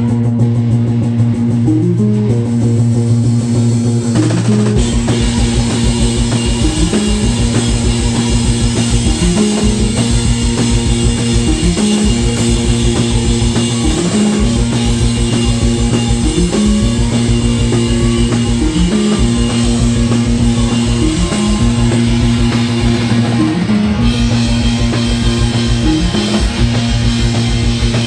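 Live rock band playing an instrumental passage: bass and guitar repeat the same riff about every two seconds, and the drums come in about five seconds in.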